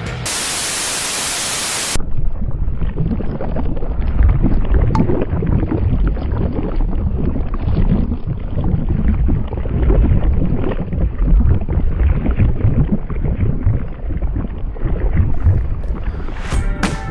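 A burst of static hiss for about two seconds, then a low, rough rumble from a volcano-eruption sound effect that runs until just before the end.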